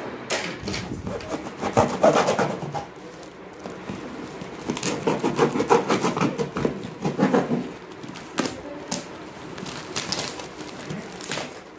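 A knife cutting and slitting through the packing tape and cardboard of a taped parcel, in rough scraping, tearing bursts, the loudest about two seconds in and from about five to seven and a half seconds in.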